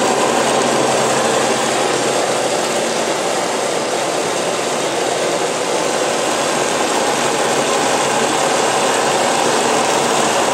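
Steady, unchanging machine noise, like a motor running.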